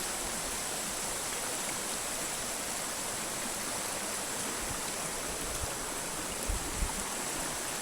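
Shallow mountain stream flowing steadily over rocks, a continuous rushing of water where the stream splits and one branch runs downhill. Two soft low thumps sound about six and a half and seven seconds in.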